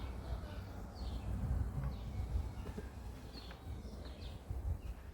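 Birds chirping outdoors, short high calls about once a second, over a steady low rumble.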